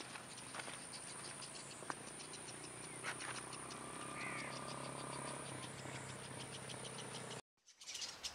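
Faint outdoor ambience by a reed-fringed pond: a steady high insect buzz with rapid regular ticking, a short bird chirp about four seconds in, and a faint low hum underneath. The sound drops out briefly near the end.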